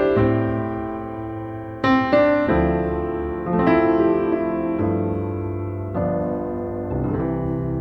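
Background piano music: slow chords struck every couple of seconds and left to ring and fade.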